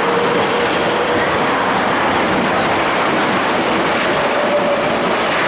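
Osaka Metro Midosuji Line electric train moving along the platform: a steady, loud rush of wheels on rail and running gear, with faint motor whines, one of them rising in pitch in the second half.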